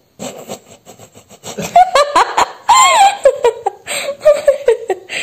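A man and a woman laughing together, in quick repeated pulses, with a high rising-and-falling squeal of laughter near the middle.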